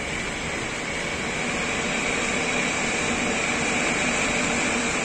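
A machine running steadily, a constant high whine over a broad rushing noise, growing slightly louder about two seconds in.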